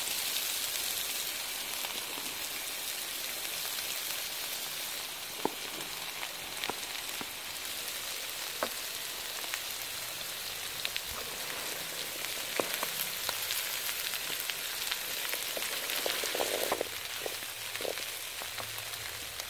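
Boiled chickpeas frying in oil and masala in a metal pan, with a steady sizzle. They are stirred with a wooden spoon, and scattered sharp taps and clicks cluster near the end.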